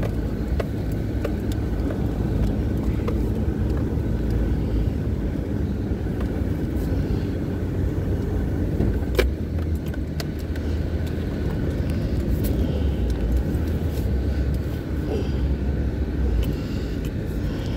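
Vehicle driving slowly off-road over rough ground, heard from inside the cabin: a steady low engine and tyre rumble with scattered clicks and rattles, the sharpest about nine seconds in.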